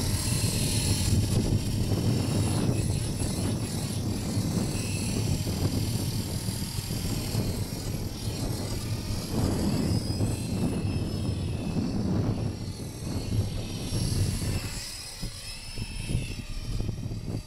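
Blade CP Pro RC helicopter with a Feigao brushless motor flying: the high whine of the motor and spinning rotor rises and falls in pitch as it manoeuvres, over low rumbling wind on the microphone.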